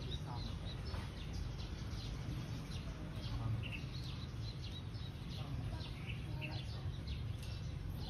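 Small birds chirping in the background, many short high calls scattered throughout, over a steady low rumble.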